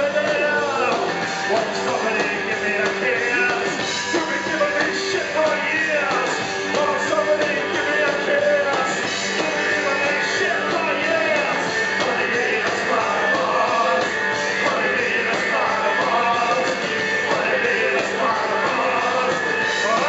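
Live rock band playing loud and without a break, with a man singing into a microphone over the band.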